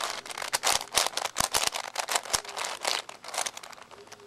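Plastic clicking and clacking of a 5x5 puzzle cube as its layers and slices are turned by hand in quick succession, thinning out near the end.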